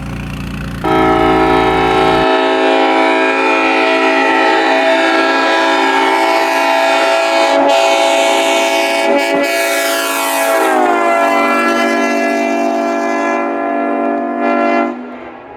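Locomotive air horn sounded in one long blast, starting about a second in and cutting off near the end. Its pitch slides down about ten seconds in, as the locomotive passes. A deep rumble sits under it for the first two seconds.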